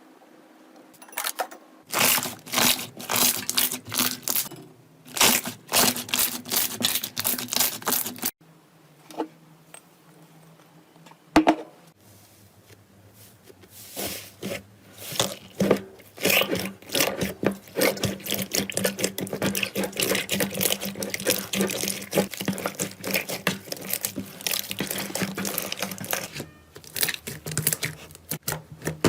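Slime being squeezed and pressed by hand, giving sticky clicks and pops in short spells, then a long stretch of dense, continuous crackling.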